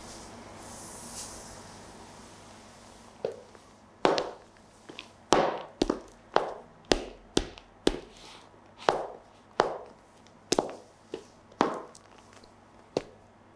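Stiletto heels of patent pumps clicking on a hard, smooth floor: about a dozen sharp taps, one to two a second, starting about four seconds in.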